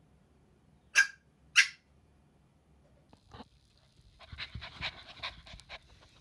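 A small dog gives two short, sharp yips about a second in. Later a puppy breathes in quick, rasping huffs close to the microphone.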